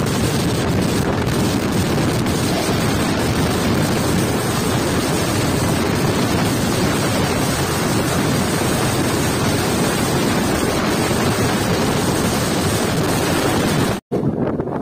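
Wind buffeting the microphone over the steady rush and rumble of an express train running at speed, heard from an open coach door. Another passenger train runs close alongside on the next track. The sound cuts out for an instant near the end.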